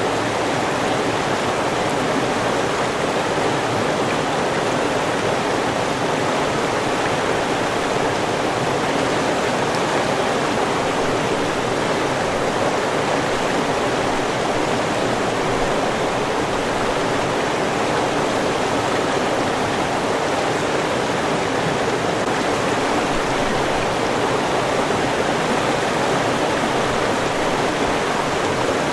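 River water rushing and splashing in a steady, even wash.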